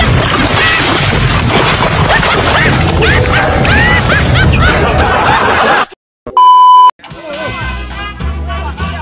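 A loud, dense comedy soundtrack mix with high squealing sweeps, which cuts off suddenly about six seconds in. After a brief silence comes a single loud, flat beep lasting about half a second, then bouncy music starts.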